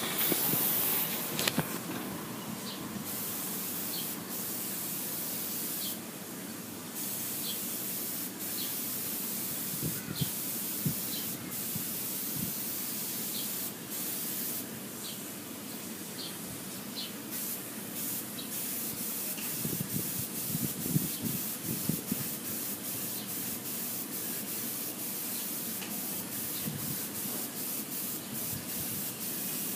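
Airbrush spraying paint with a steady hiss, broken by many short bursts that come faster near the end, with a few soft knocks a little after two-thirds of the way through.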